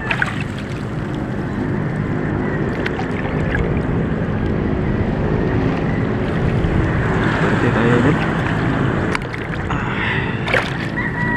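Small fishing boat's engine running steadily as the boat moves along the water. A few sharp knocks come near the end.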